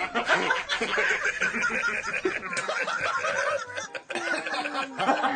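Four men laughing together, their laughter overlapping continuously, with a brief lull about four seconds in.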